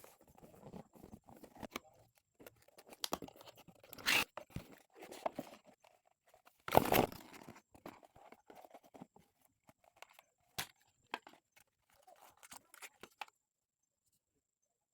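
Packaging of a JBL Flip 7 speaker box being handled and opened: scattered rustling, crinkling, tearing and small clicks, loudest about four seconds in and again about seven seconds in.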